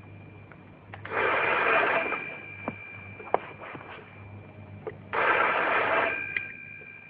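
Crackling line noise cut off above about 4 kHz, like a radio or telephone line, with two steady high whistles and a low hum. Two louder bursts of static, each about a second long, come about a second in and again about five seconds in, with a few sharp clicks between them.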